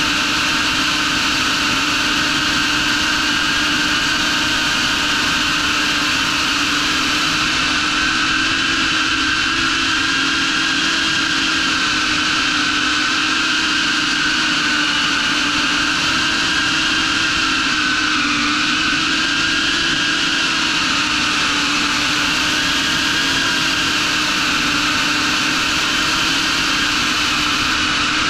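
Brushless motors and propellers of an HGLRC Veyron 35 CR pusher cinewhoop FPV quadcopter in flight, a steady whine recorded on the drone itself. Its pitch dips and rises a little with the throttle, lowest about two-thirds of the way through.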